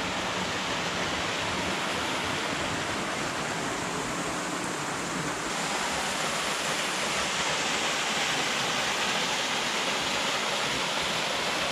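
Small stream and waterfall rushing over rocks: a steady, even rush of water.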